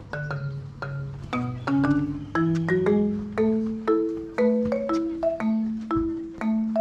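Background music: a light tune of short struck notes, each ringing briefly and fading, at changing pitches over a steady pulse.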